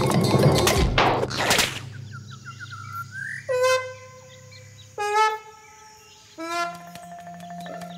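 Cartoon elephant honking through its knotted trunk: three short, squeaky, horn-like toots about a second and a half apart, each dipping slightly in pitch. A loud noisy rush fills the first two seconds.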